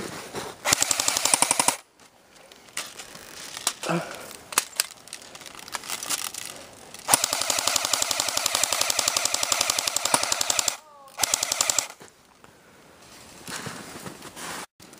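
Airsoft gun firing full-auto bursts of rapid, evenly spaced shots: a short burst about a second in, a long burst of several seconds about halfway through, then another short burst, with a few single clicks between.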